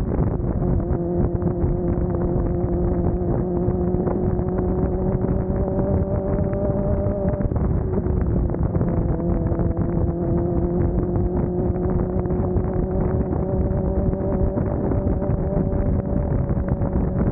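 Suzuki GSX-R750 motorcycle's inline-four engine running under way, its pitch climbing slowly, dipping briefly about seven and a half seconds in, then climbing again, with wind noise on the microphone.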